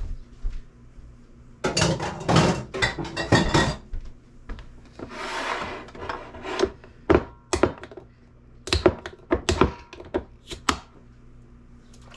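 Kitchen handling sounds: glass canning jars, lids and utensils clattering and knocking on the counter, with a short rushing scrape about five seconds in as food goes into a slow cooker, and a run of sharp knocks near the end.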